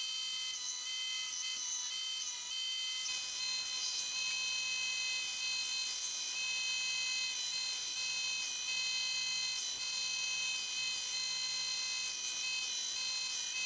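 Belt grinder running with a steady whine and hiss as a high-carbon steel knife blade is rough-ground against the abrasive belt. The sound gets a little fuller about three seconds in.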